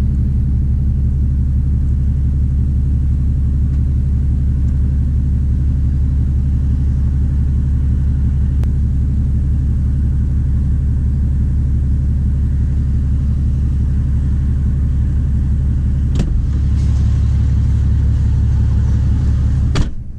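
Straight-piped 6.7-litre Cummins inline-six turbo diesel in a 2017 Ram 2500 idling steadily with a deep low rumble, heard from inside the cab. Two sharp clicks come near the end.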